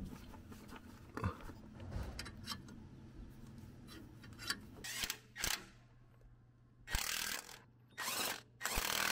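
Cordless impact wrench hammering the mounting bolts of a new bottom roller on a Cat D8H bulldozer's track frame, in three short bursts near the end. Before that come a few light metal clanks and knocks as the roller and bolts are handled.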